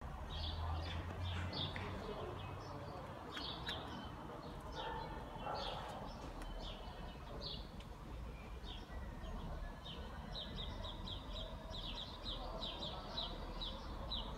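Small birds chirping in short high notes again and again, the chirps coming in quicker runs near the end, over a low steady background hum.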